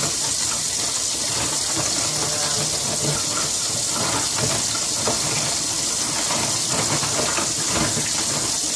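Kitchen tap running steadily into a sink, with splashing as hands work baby-bottle parts down into a basin of hot water to soak.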